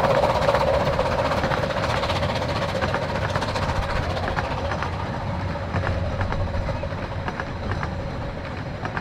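Coaches of a 15-inch gauge steam train running past and away, wheels clicking over the rail joints in a quick irregular clickety-clack, growing fainter as the train recedes.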